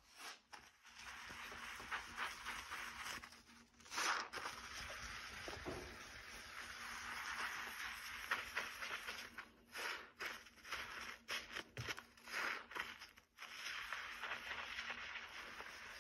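Sponge scrubbing a soapy stone countertop: a run of rough swishing and scraping strokes, uneven in strength, with a few brief pauses.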